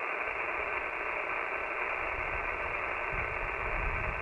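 Steady hiss of 20-meter band noise from an Icom IC-7300 HF transceiver's speaker in single-sideband receive, with no readable signal: a weak station calling back has dropped into the noise. A low rumble comes in about halfway.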